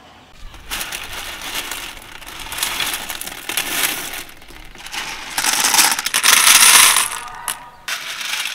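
Dry pasta pieces (fusilli and penne) clattering and rattling as handfuls are let fall into stainless steel bowls: a dense run of small clicks, loudest about five to seven seconds in.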